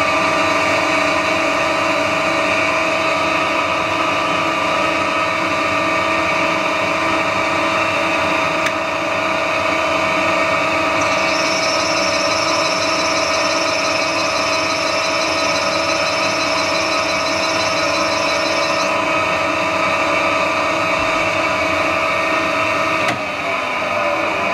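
Metal lathe running with a steady gear whine as it turns down a black Delrin (acetal) rod dry, without coolant. A higher-pitched whine joins for several seconds midway, and the running note sags a little near the end.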